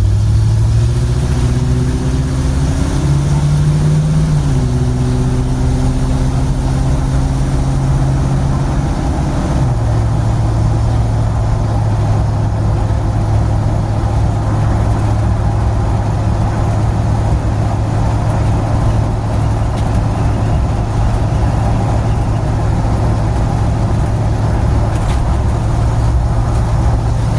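Road and engine noise inside the cabin of a vehicle with almost no interior and holes in its body, driving on the road. The engine note changes pitch in steps during the first ten seconds, then settles into a steady drone at cruise, still loud despite freshly applied sound deadening.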